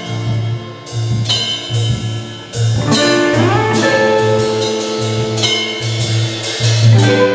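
Live rock band playing an instrumental passage: electric guitars over bass guitar and a drum kit, with a note sliding upward about three seconds in.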